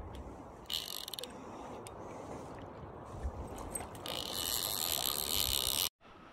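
Fishing reel ratcheting: a short burst about a second in, then a longer buzzing run of nearly two seconds from about four seconds in that cuts off abruptly.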